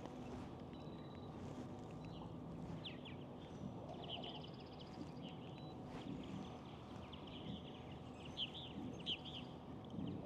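Faint bird chirps, short high notes in small clusters, the loudest a few near the end, over a quiet steady outdoor hiss.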